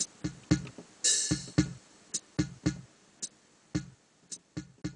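Background music with a drum-machine beat and synthesizer, the music cutting off right at the end.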